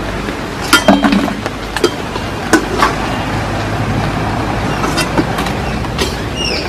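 Oil sizzling steadily as nimki deep-fry in a steel kadai, with several sharp clinks of a steel slotted spoon against the pan and plate.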